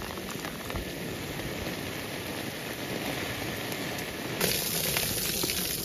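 Steady rain falling, a hiss full of small drop ticks that grows louder about four and a half seconds in.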